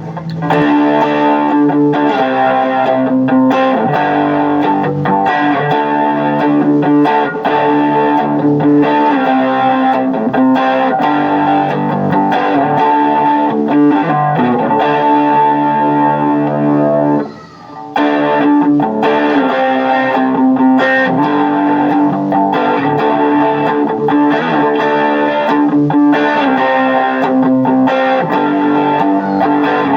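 J-Craft T-3V Telecaster-style electric guitar being played: held chords that change every second or two, with a short break a little past halfway through.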